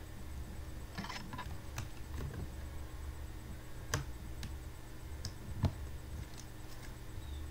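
Scattered light taps and clicks of a pen and metal ruler being set down and moved on a drawing book on a wooden table, the two loudest about four and five and a half seconds in, over a steady low hum.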